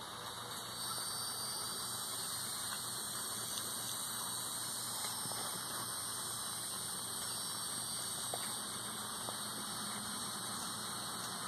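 Steady high-pitched hiss of outdoor night ambience, growing fuller about a second in, with a few faint ticks.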